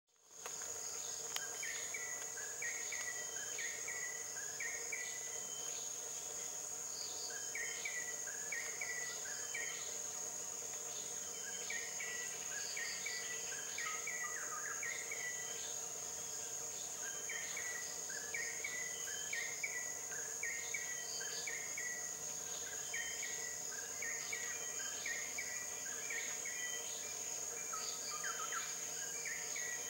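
Tropical forest insect chorus: a steady high-pitched drone, with groups of four or five short chirps repeating every few seconds.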